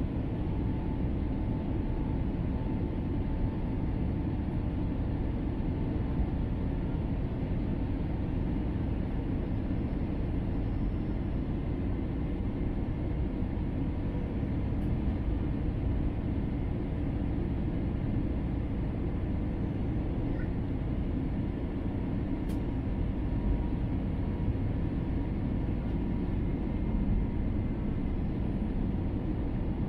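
Steady cabin noise of an Airbus A321 on final approach, a low rumble of airflow and engines with a faint steady whine, carrying on unchanged as the airliner comes down over the runway and touches down.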